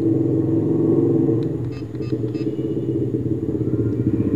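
A steady low engine rumble, like a nearby motor idling, runs under a few faint clicks about one and a half to two and a half seconds in.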